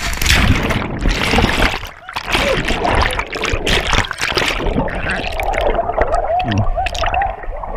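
Ice water splashing and gurgling close around the microphone as a body plunges into an ice bath, with a muffled wavering tone over the last two seconds.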